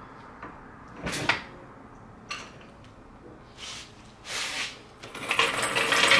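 Floor jack being let down and pulled out from under the car: a knock about a second in, a few short scrapes, then a longer, louder rattle as the jack is rolled across the concrete near the end.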